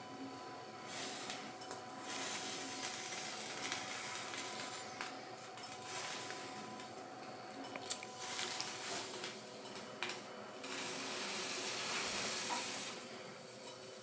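Pots and pans clinking on a stovetop, with a few sharp clicks and stretches of hissing that come and go.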